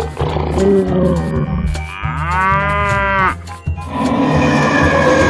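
A cow mooing once, a long call about two seconds in that rises and falls in pitch, over background music.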